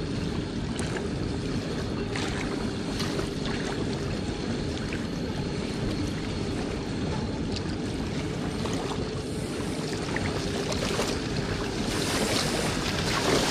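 Steady wind buffeting the microphone and small waves lapping at the sandy river shore, getting a little louder near the end.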